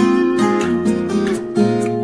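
Background music on acoustic guitar, a run of plucked notes and strummed chords.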